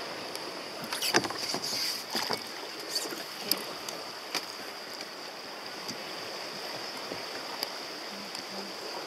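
Steady hiss of water and wind around plastic sea kayaks rafted together, with a scattered handful of short knocks and taps from the hulls and decks, the loudest a little over a second in.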